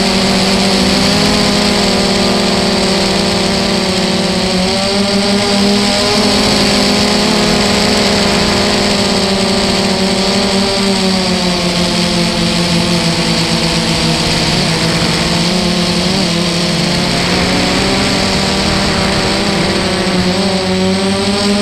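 Brushless motors and propellers of an FPV quadcopter in flight, heard close up from the camera on board: a steady whine whose pitch drifts up and down with the throttle, over a constant hiss.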